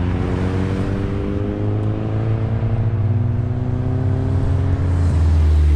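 A car engine under hard acceleration, its pitch climbing steadily and without a break for about five seconds over a low, steady rumble.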